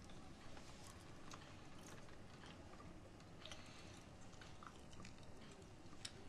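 Faint eating sounds: scattered light clicks of wooden chopsticks against a porcelain rice bowl, with quiet chewing.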